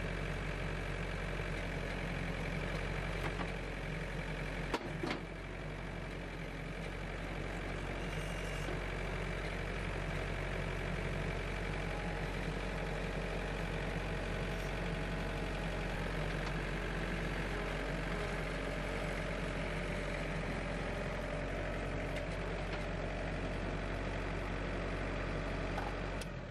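Case 35B compact tractor's engine running steadily while the front loader's 4-in-1 bucket is tipped and dragged across a soil mound to level it. One sharp knock about five seconds in.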